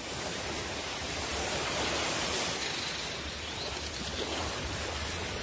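Surf and shallow water washing over a reef flat at low tide, a steady hiss that swells a little in the middle.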